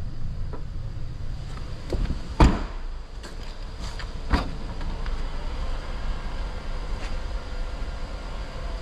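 A steady low rumble of running machinery with a few sharp knocks, the loudest about two and a half seconds in and another about two seconds later.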